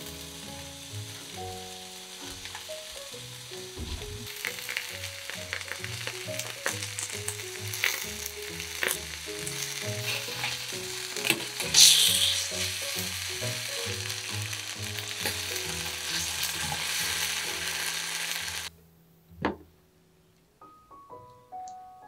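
Spanish mackerel fillets sizzling in a black steel frying pan as saikyo miso sauce is poured in and worked over them with a spatula. The sizzle gets louder about four seconds in, with small spatula clicks and a sharp burst of hiss about twelve seconds in. It cuts off suddenly near the end, followed by a single knock, with soft piano music underneath.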